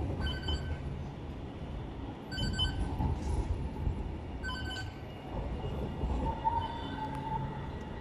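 City tram running along the street with a steady low rumble, and its wheels squealing on the rails from about six seconds in. Early on, three short high beeps sound about two seconds apart.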